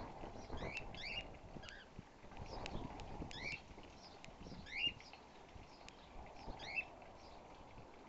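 Cockatiels calling: short, rising, whistled chirps at irregular intervals, a few louder ones near the middle and toward the end. The keeper takes the birds to be agitated by his standing close to the nest.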